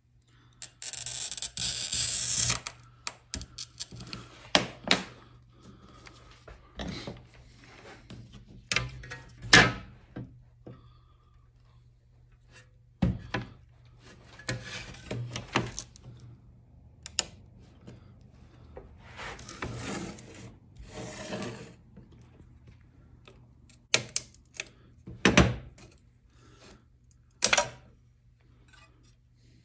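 Pen-style glass cutter scoring a sheet of stained glass, a loud scratchy hiss about a second in. Then scattered sharp clicks and knocks as the glass is worked with running pliers and broken along the score, with a few more scratchy passages.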